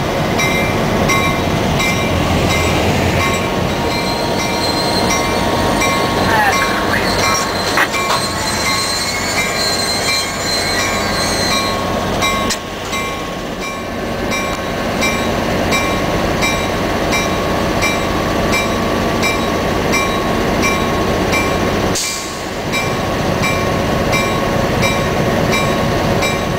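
EMD FL9 diesel locomotive running, heard from its cab: the 567 prime mover and wheels on the rails make a steady loud din, with a faint regular ticking and some wheel squeal on the curving track.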